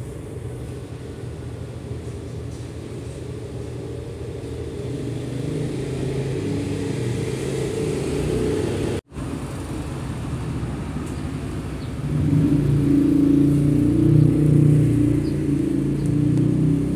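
Low, steady rumble of a busy indoor market hall's ambience, cutting out for an instant about nine seconds in and growing louder a few seconds later.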